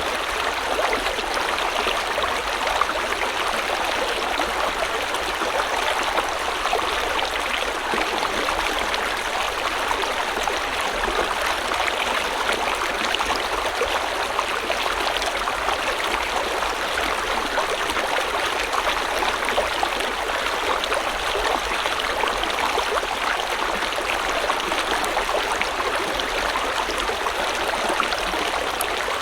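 River water flowing steadily over rocks, a continuous even rushing and babbling without change.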